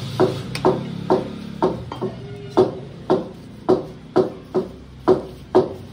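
Butcher's knife knocking on a wooden chopping block in a steady rhythm, about two knocks a second, while slicing mutton.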